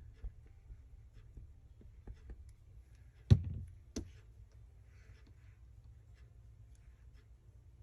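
Hands working paper and fabric at a craft table: faint small rustles and clicks, with one sharp knock on the tabletop about three seconds in and a smaller click just after.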